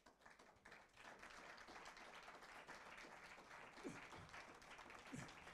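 Audience applauding, starting suddenly out of silence at the end of a song and building over the first second, then holding steady; fairly faint.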